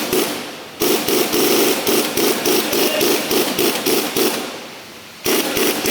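Loud, rapid rhythmic knocking, about four strikes a second, in runs of a few seconds: it stops about three quarters of the way through and starts again near the end.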